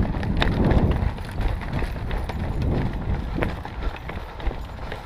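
Footsteps of people running, with a low rumble and scattered short knocks.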